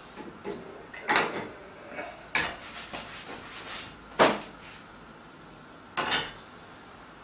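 Frying pan and spatula clattering on a gas hob: a series of sharp metal knocks and scrapes as the pan is worked, lifted off the burner and set back down, with the loudest knock about four seconds in.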